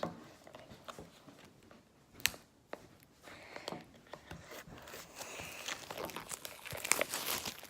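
Plastic packaging of a small product box being torn and crinkled open, with a sharp click near the start and another about two seconds in, and denser crinkling in the last few seconds.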